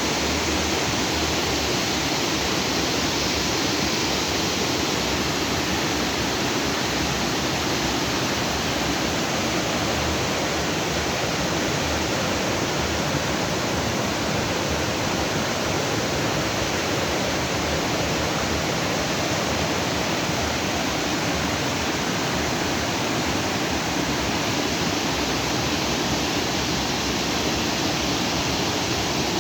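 Fast stream water rushing and splashing over rocks in a steady, even roar.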